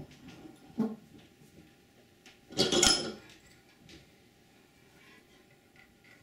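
Hand work with thin steel leader wire being bent around a nail set held in a bench vise: scattered light metallic clicks and ticks, and a short, loud rasping scrape about two and a half seconds in.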